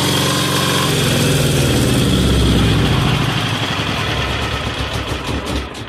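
A 186FA single-cylinder diesel engine, burning power steering fluid as fuel, runs steadily, then from about a second in slows down. Its beat falls into separate, ever slower chuffs as it winds down to a stop near the end.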